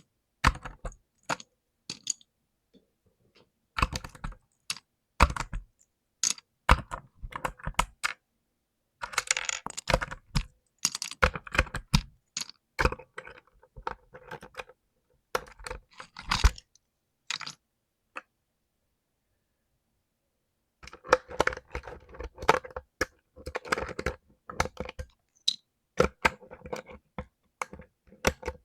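Mechanical keyboard with clicky blue switches: keys clicking in irregular bursts of quick presses, broken by pauses, with one silent gap of a few seconds past the middle.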